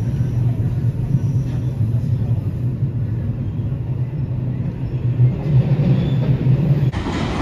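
Passenger train running, a steady low rumble with a droning hum, as heard on board. The sound changes abruptly near the end.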